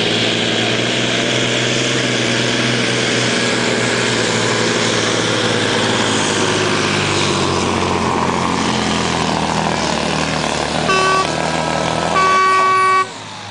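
Iveco truck-pulling truck's diesel engine running flat out under load as it drags the weight sled. Near the end an air horn sounds twice, a short blast and then a longer, louder one, and the engine drops off sharply as the truck completes a full pull.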